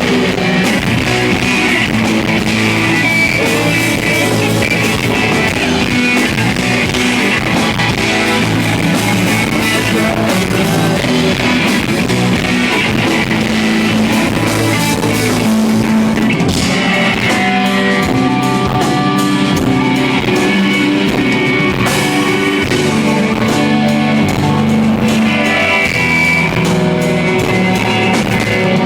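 Live rock band playing loudly, with distorted electric guitars and a drum kit, recorded from the crowd so the sound is dense and saturated.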